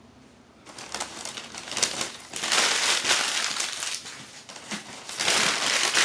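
Crumpled newspaper packing rustling and crinkling as a hand digs through it, starting about a second in and louder in two spells, about halfway through and near the end.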